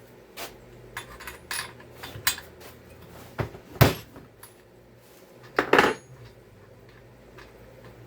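Metal tools and small chainsaw parts clinking and clattering during a teardown, a series of scattered clicks with louder knocks about four and six seconds in.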